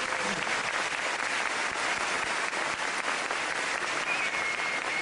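Audience applauding: many hands clapping at once at a steady level.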